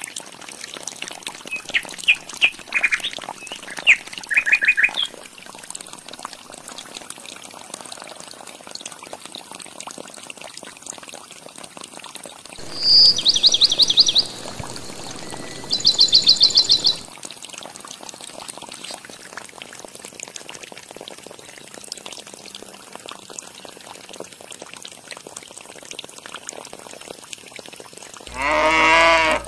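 Water trickling steadily from a miniature pump outlet down a small foil channel. Short high chirps come in the first few seconds, two loud bursts of rapid trilling calls come around the middle, and a cow lows briefly near the end.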